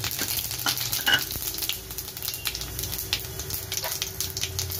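Fennel seeds sizzling in hot oil in a kadai, a steady hiss dotted with many small crackles and pops as the seeds splutter.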